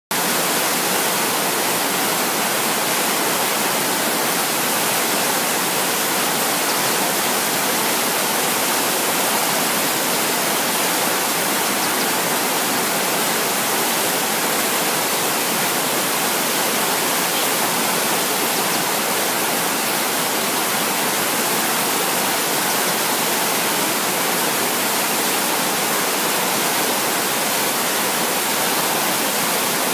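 River rapids rushing over rocks: a steady, unbroken whitewater rush.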